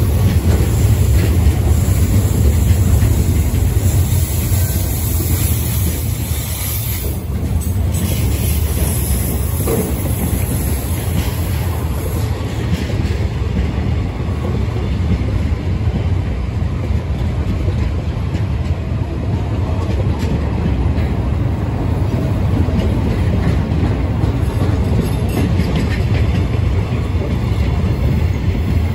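Freight wagons of a train, container and empty flat wagons, rolling past close by on steel wheels: a steady, loud, low rumble of wheels on the rails.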